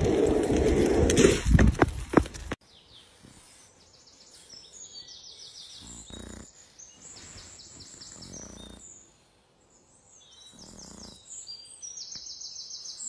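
Loud outdoor noise with wind on the microphone for the first couple of seconds. It cuts off sharply, and from then on small birds are chirping in quick repeated trills, faint in the background.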